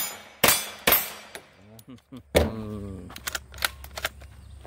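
CZ Scorpion EVO 3 carbine firing: three shots in quick succession, then one more about two seconds later, followed by a few light clicks.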